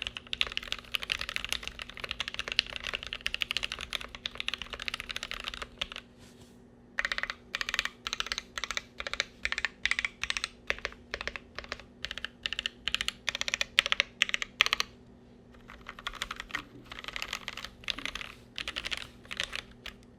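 Typing on a Glorious GMMK Pro mechanical keyboard with lubed OP Black linear switches, GMK keycaps and a polycarbonate plate, with no foam inside the board. Fast typing gives way after a pause to slower, evenly spaced keystrokes about twice a second, then fast typing resumes near the end. The uploader finds the switch sound flattened out by the board.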